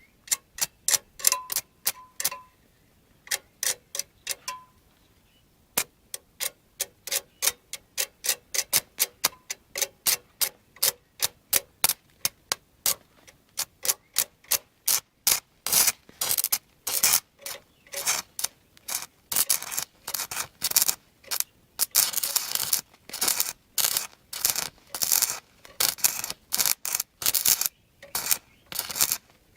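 Stick-welding arc running on three nearly dead 12 V car batteries in series (DC), crackling in short, irregular bursts. From about halfway in the bursts grow longer and closer together.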